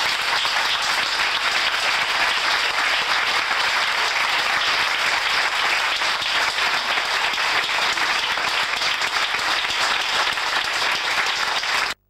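A crowd applauding, thick and steady, cut off suddenly near the end.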